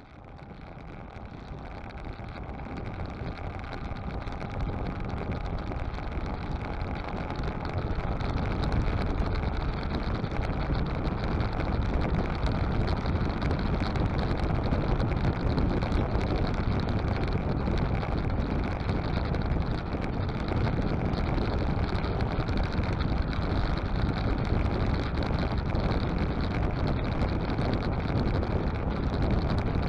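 Motorcycle riding at highway speed: steady wind rush over the microphone with the engine running underneath, fading in over the first several seconds.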